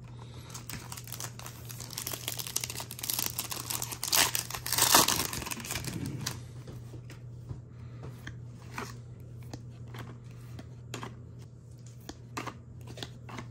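A foil trading-card pack wrapper being torn open and crinkled, the rustle loudest about four to five seconds in. After it come scattered light clicks and taps as the cards are handled.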